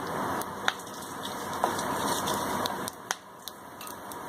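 Whole spices, including freshly added green cardamom, sizzling in hot oil in a pan, with a few sharp pops and crackles.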